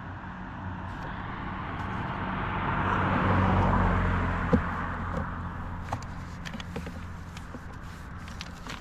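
A road vehicle passing by, building to a peak about three and a half seconds in and then fading away. A single sharp knock comes just after the peak, and light clicks and rustles follow near the end.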